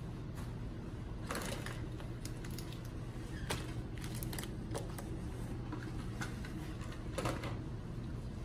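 Gloved hands handling sterile supplies: scattered short crinkles and clicks of drapes, wrappers, tubing and a cord being moved and sorted, over a steady low room hum.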